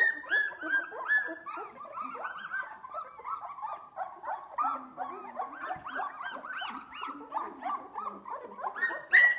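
A litter of two-week-old Australian Labradoodle puppies crying, many short, high-pitched calls overlapping several a second, each rising and falling in pitch.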